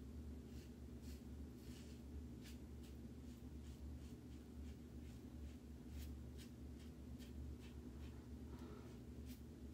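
Faint scraping of a vintage Gillette adjustable double-edge safety razor cutting through lathered stubble in quick, repeated short strokes, a couple a second.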